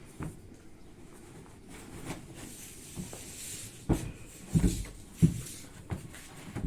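Dull wooden knocks and thumps from the frame of a corner sofa being handled during repair, about five irregular knocks in the second half, after a brief scraping rustle.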